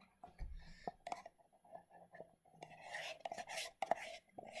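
Handling noises: short scraping and rubbing sounds with a few sharp clicks and knocks, and a longer rough scrape about three seconds in.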